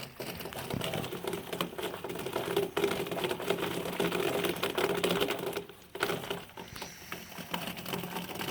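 Heavy rain pattering in dense, rapid ticks, with a steady low hum underneath; the sound drops away briefly about six seconds in.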